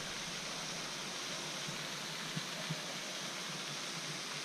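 Steady, even rush of flowing water, with two faint taps about two and a half seconds in.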